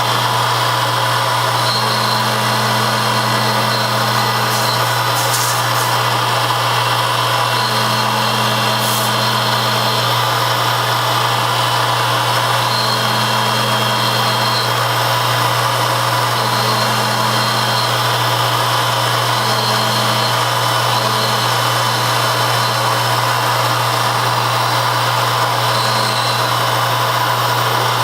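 A metalworking machine tool running steadily under power, with a constant hum and a second tone that cuts in and out every few seconds.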